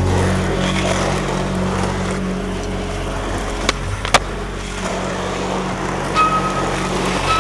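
Skateboard wheels rolling on asphalt with a steady rumble. A sharp pop of the tail comes a little under four seconds in and the board lands about half a second later, then rolls on.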